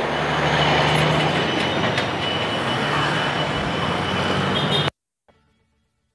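Close road traffic passing: a truck hauling an empty container-chassis trailer rolls by with engine hum, tyre roar and a thin high steady whine, followed by other vehicles. The sound cuts off suddenly about five seconds in.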